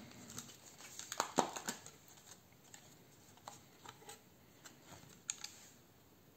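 Thin plastic clamshell pack of wax melts clicking and crackling as it is handled and opened by hand: a cluster of clicks about a second in, then scattered single clicks.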